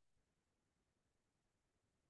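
Near silence, with no sound above the faint noise floor of the recording.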